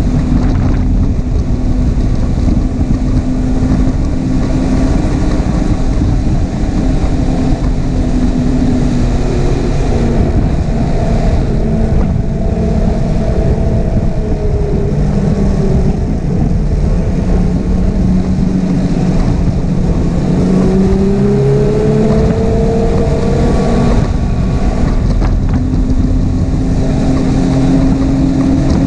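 Snowmobile engine running at trail speed, its pitch rising and falling with the throttle, over a steady low rumble of wind on the microphone.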